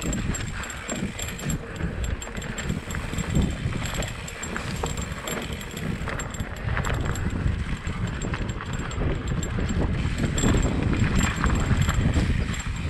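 Mountain bike riding a rough trail: steady wind rush on the microphone, with frequent clatter from tyres and frame over rocks.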